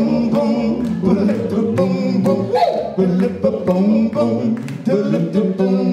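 A live rock band plays: drum kit keeping a steady beat under electric bass and electric guitar, with singing.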